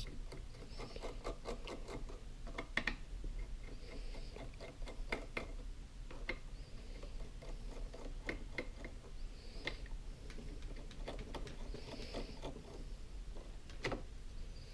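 Screwdriver working the Phillips screws of a glass linear scale: irregular small metal clicks and ticks with a few short soft scrapes.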